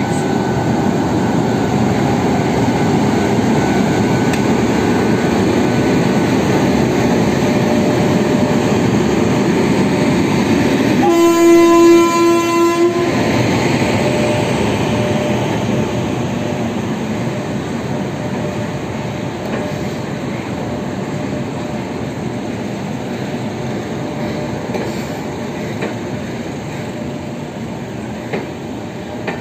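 Express train rolling past the platform with a steady rumble and wheel clatter. About eleven seconds in, the horn of its WAP-7 electric locomotive sounds one blast of about two seconds, the loudest moment. The rumble slowly fades toward the end.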